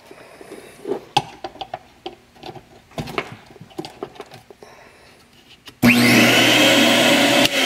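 Scattered clicks and knocks of handling, then about six seconds in a VacuFlow 560 central vacuum motor starts abruptly when its inlet port is opened and runs loud and steady, its whine climbing as it spins up. It is running again with the newly replaced circuit breaker.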